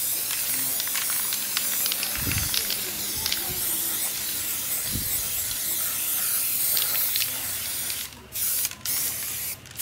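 Aerosol spray-paint can hissing in a long steady spray, stopping about eight seconds in and giving one more short spray near the end.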